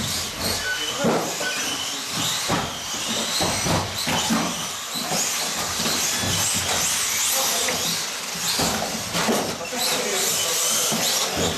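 Several 1/18-scale electric off-road RC cars racing together, their motors whining in overlapping high-pitched glides that rise and fall as they speed up and slow down, with a steady hiss under them.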